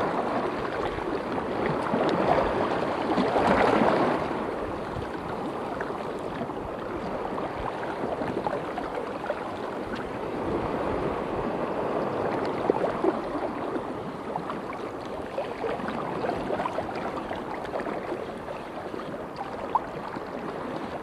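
Choppy estuary water splashing and lapping close by, a steady rush with small ticks and splashes, swelling for a moment a few seconds in.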